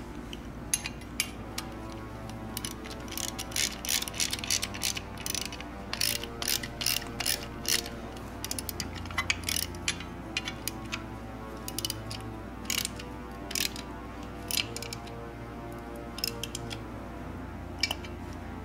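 Socket ratchet clicking in quick runs as the camber kit bolts are tightened onto the upper control arm, the clicks coming thickest in the first half and sparser later. Faint background music runs underneath.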